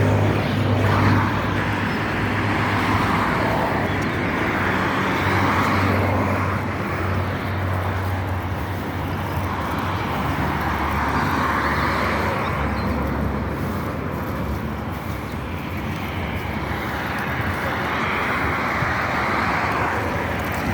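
Road traffic: vehicles passing one after another, with a low engine hum under a steady rush of tyre noise that swells and fades every few seconds.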